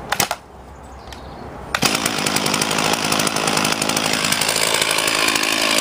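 Petrol two-stroke chainsaw opened up sharply about two seconds in, after a couple of short knocks, then running at high revs with a fast, buzzing pulse.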